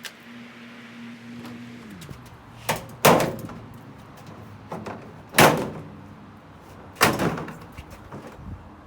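Jeep Wrangler JK plastic fender being wrenched off the body, its plastic retaining clips popping loose with a series of loud sharp cracks, the three loudest about two seconds apart.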